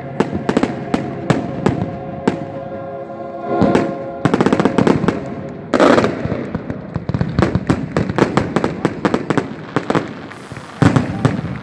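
Fireworks display: a rapid run of bangs and crackles from bursting shells, with a loud burst about six seconds in and dense crackling after it. Music with held notes plays under the fireworks during the first half.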